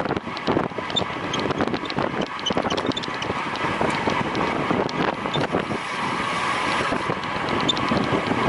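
Wind buffeting the microphone of a rider's camera on a road bike in motion, over steady rushing noise from the bike, with frequent small clicks and rattles.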